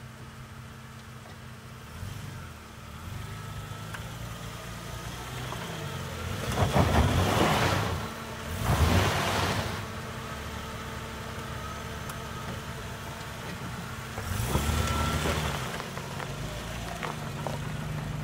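Jeep Grand Cherokee WJ's 4.0-litre inline-six engine pulling slowly up a steep dirt climb, with the tyres crunching and scrabbling over loose dirt and gravel. The sound swells loudly twice in the middle and again near the end as the wheels work over the ruts.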